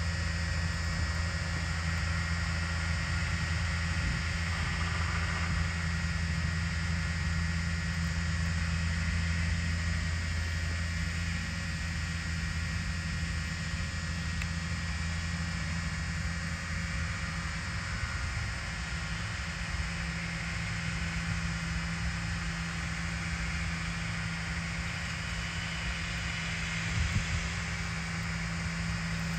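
Camera drone flying overhead, its propellers giving a steady buzzing whine with a low hum and several high held tones. The pitch of the low hum shifts about a third of the way through.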